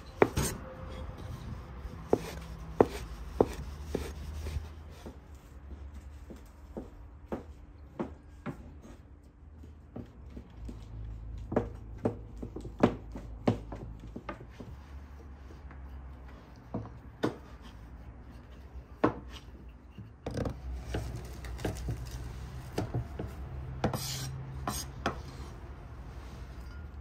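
Irregular knocks and taps of food preparation on a wooden board, with some rubbing and scraping between them, over a low rumble.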